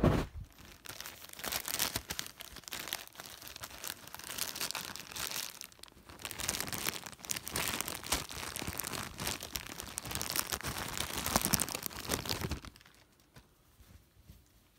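Packaging crinkling and rustling, with some tearing, as a plush toy is unwrapped. It is a dense, uneven rustle that stops a couple of seconds before the end.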